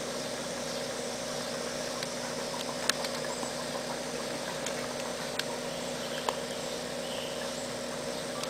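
A small engine running steadily at an even pitch, with a few sharp clicks over it.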